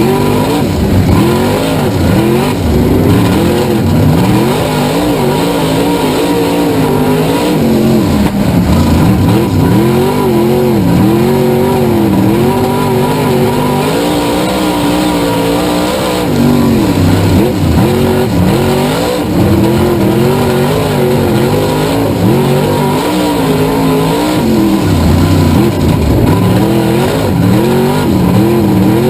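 Race car engine running hard, its pitch rising and falling again and again every few seconds as it accelerates and lifts off around the track.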